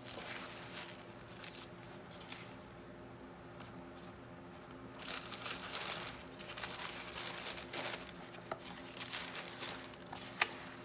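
Sheets of paper and card rustling and crinkling as they are handled and shuffled, in irregular bursts, with one sharp tap near the end.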